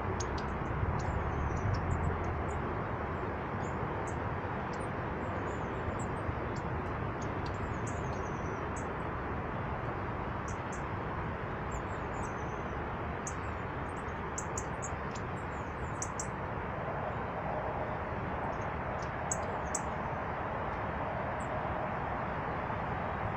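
Small birds at feeders giving short, high chirps and twitters, scattered throughout, over a steady rushing background noise.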